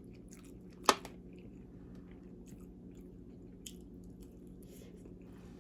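A person chewing crunchy salad close to the microphone: soft, scattered crunches and mouth sounds, with one sharp click about a second in.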